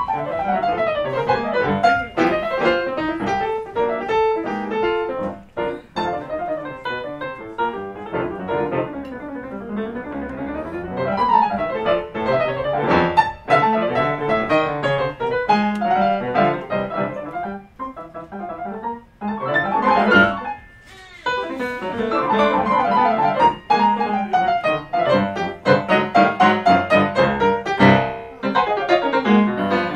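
Two grand pianos, one a Yamaha, playing jazz together with fast runs sweeping up and down the keyboard. The playing thins briefly about 20 seconds in, then picks up again with dense chords.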